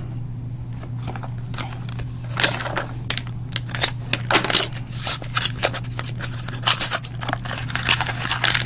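Hands handling and opening a small cardboard blind box and the foil wrapper inside it: irregular rustling and crinkling that grows busier toward the end, over a steady low hum.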